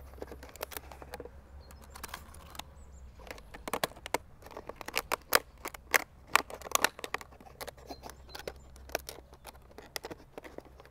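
Thin plastic water bottle crackling and clicking as its cut-off, upside-down neck is pressed back into the body as a funnel. The sharp clicks come irregularly and are thickest a few seconds in.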